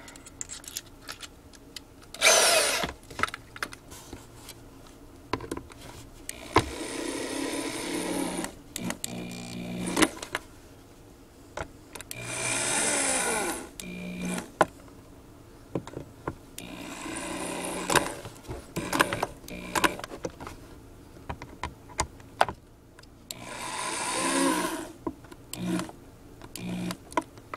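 Cordless drill/driver driving the mounting screws of a woofer's stamped steel frame into a speaker box, whirring in about five short runs of a second or two each, with clicks and handling knocks in between.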